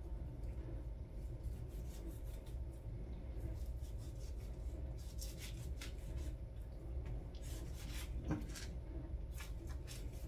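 Kitchen knife slicing raw lamb away from the bone, held against a plastic cutting board. Soft, scattered scraping and cutting sounds, coming in clusters about halfway through and again later.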